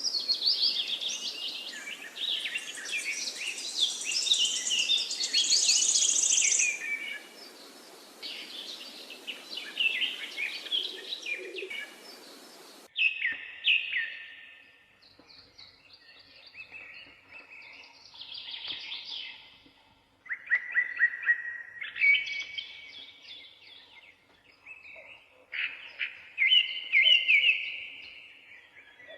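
Birds chirping and singing: a dense chorus over a hissy background that stops abruptly about 13 seconds in, followed by scattered separate chirps and short trills.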